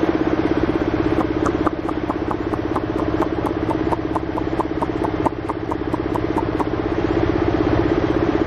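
A motor running steadily with a fast, even pulse. From about a second in until past the middle, a run of short high squeaks repeats about four times a second.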